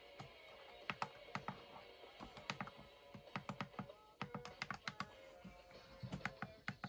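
An irregular run of sharp plastic clicks and taps, a few a second, like keys or buttons being pressed, over a faint steady hum.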